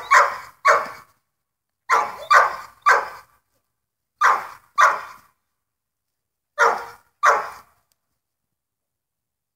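A dog barking: nine loud, short barks in groups of two or three, stopping about two seconds before the end.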